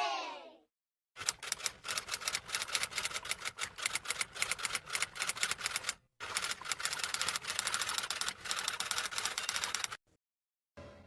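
Rapid, irregular typing clicks in two runs, about five seconds and then about four seconds long, with a short break between them. At the very start the tail of a crowd cheer fades out.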